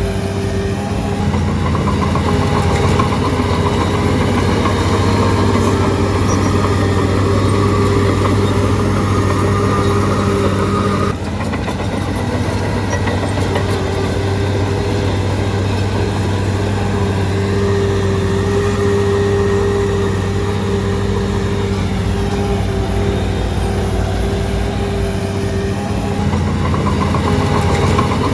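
Shantui DH17C3 bulldozer's diesel engine running steadily, with a sudden dip in level about eleven seconds in.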